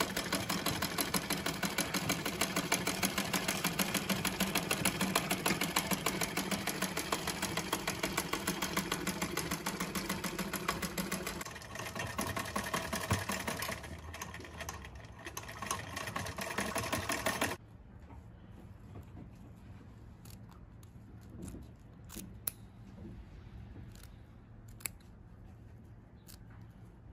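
A 70-year-old black Philip-branded treadle sewing machine stitching fast with a rapid, even rhythm, then stopping abruptly about two-thirds of the way in. After that come a few faint snips of small scissors trimming the fabric.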